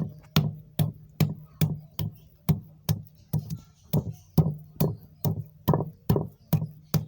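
Pestle pounding temu kunci (fingerroot) rhizome in a mortar: a steady run of even strikes, about two and a half a second, each a dull thud with a sharp knock on top.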